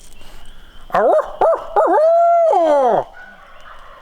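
Coyote howl blown on a turkey hunter's locator call: a few quick yips, then a long held howl that falls away in pitch. It is sounded to make roosted turkeys shock-gobble and give away where they are.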